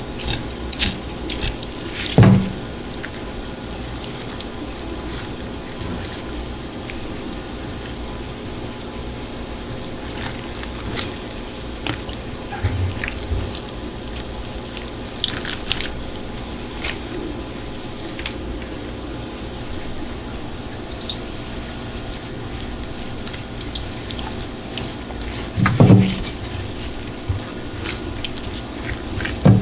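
Wet squelching and dripping as the raw innards of a freshly killed anglerfish are handled and cut, with small wet clicks throughout. A few dull knocks stand out, about two seconds in and again near the end.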